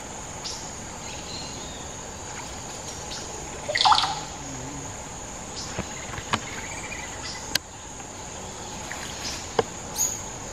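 Steady high-pitched drone of jungle insects, with a few short sharp clicks and rustles and one brief louder sound about four seconds in.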